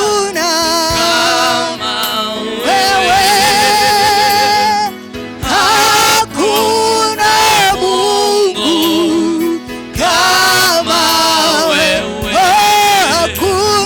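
Gospel worship music: one voice sings long held notes with wide vibrato, broken by short pauses, over a steady low accompaniment.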